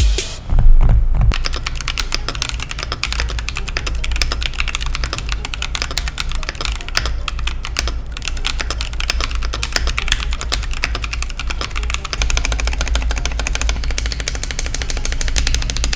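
Rapid, continuous typing on a mechanical keyboard fitted with Akko CS switches, a dense run of keystroke clicks, with a louder flurry in the first second. A steady low hum runs underneath.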